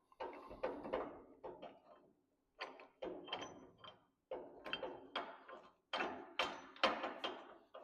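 Metal parts of a 1926 John Deere Model D's steering gear knocking and clinking as the washer and worm are worked onto the steering shaft inside the front-end housing. A dozen or so irregular short knocks, some with a faint metallic ring.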